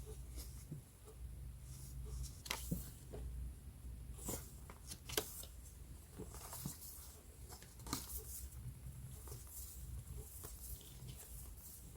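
Sheets of scrapbooking paper and stationery being handled and shuffled: scattered soft rustles and sharp paper crinkles, a few each second.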